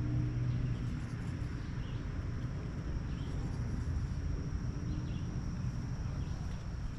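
Low, steady rumble of a nearby vehicle's engine through a loud muffler, with a constant high insect buzz and a few brief bird chirps over it.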